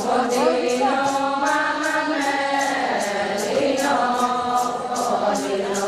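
Adi women singing a Ponung chant together, several voices on long held and sliding notes, over a high rattling beat about twice a second.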